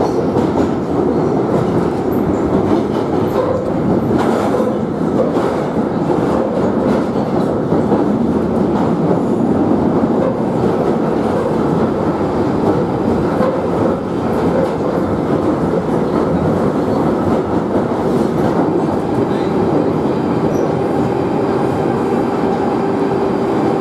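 London Underground Northern line 1995 Stock train running through a tunnel, heard from inside the carriage: a loud, steady rumble of wheels on rail with a humming drone and occasional rail clicks.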